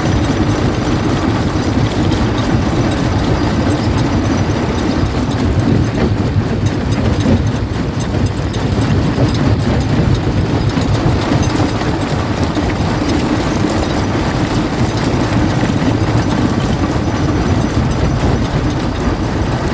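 Primary jaw crusher running and crushing rock: a loud, steady rumble with continuous clatter of stone breaking between the jaws.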